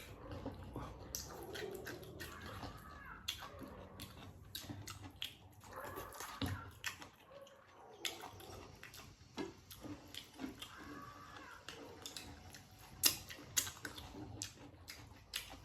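People eating: wet chewing and mouth sounds, with many small clicks and taps scattered throughout.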